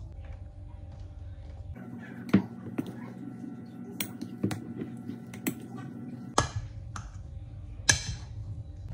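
Metal spoon stirring mashed potatoes in a ceramic bowl, scraping and knocking against the bowl in a handful of sharp clicks at irregular intervals.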